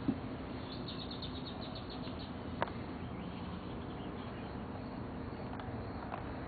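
A bird's rapid trill of high chirps about a second in, over a steady low background hum, with a few faint clicks.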